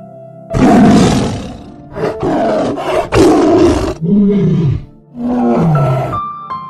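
A large animal roaring and growling in about five loud, rough calls, one with a falling pitch, over soft background music.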